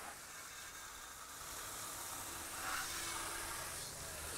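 Motul spray cleaner being sprayed onto the motorcycle after a wash to keep water spots off: a faint, steady hiss.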